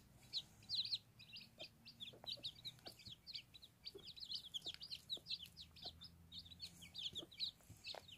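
Newly hatched Aseel chicks peeping, a rapid, continuous run of short high cheeps, faint. A few short, lower clucks sound among them, from the broody hen.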